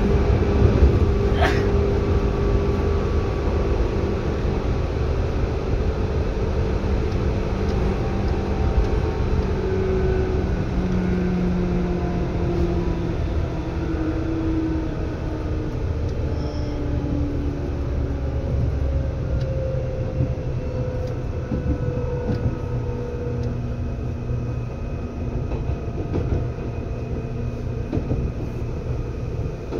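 Seibu 2000 series electric train running, heard from inside the car: a steady low rumble of wheels on track, with motor and gear tones that slowly fall in pitch as the train slows. A click comes about a second and a half in.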